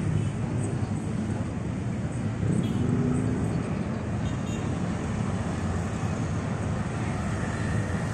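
Steady street traffic noise from motorcycles and cars passing on a busy road, with no single event standing out.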